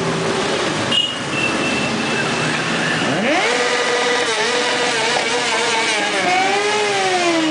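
Motorcycle engine running under way, revving up sharply about three seconds in, holding, then easing off near the end.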